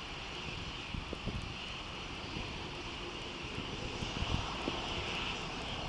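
Distant, steady rumble and hiss of a Boeing 747-200 freighter's four jet engines as it climbs away after takeoff, growing slightly louder near the end. Wind buffets the microphone with scattered low thumps.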